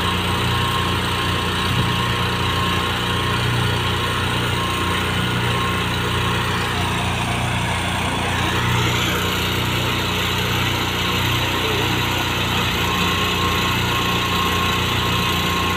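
A small engine running steadily at a constant speed. It is the pony motor in the detachable gooseneck of a heavy-haul lowboy trailer, powering the hydraulics while the gooseneck controls are worked.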